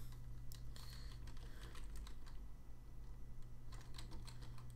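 Irregular keystrokes on a computer keyboard as a web address is typed in, over a steady low hum.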